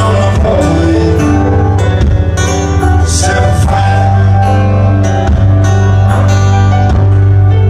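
Live band music: guitars over a heavy sustained bass, loud and continuous.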